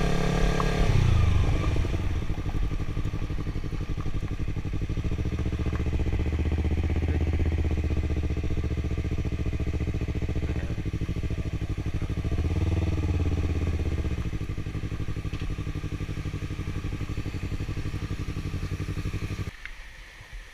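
Yamaha YZF-R3 parallel-twin motorcycle engine slowing down, then running at low speed near idle, with one brief rise and fall in revs about 12 seconds in. The engine stops shortly before the end.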